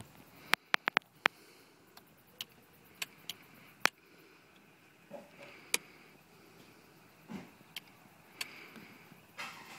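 A series of sharp clicks from the rocker switches on a boat's console panel being flipped: four in quick succession about half a second in, then single clicks every second or so.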